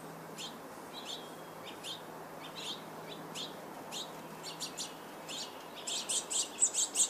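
Brown-headed cowbird nestling begging: short, thin, falling chirps about once or twice a second, quickening into a fast, louder run near the end.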